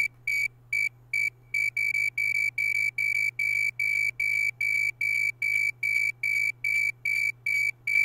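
Synthesized snowy tree cricket chirps from a Raspberry Pi Pico's two cores: short high-pitched tone pulses, about three a second. They are unevenly spaced for the first second and a half, then settle into a steady, even rhythm as the two cores' chirps resynchronize.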